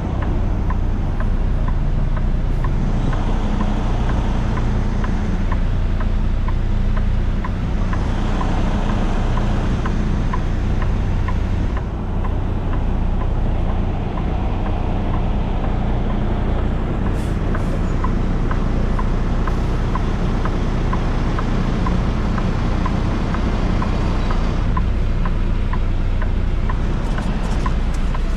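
Semi truck's diesel engine running steadily.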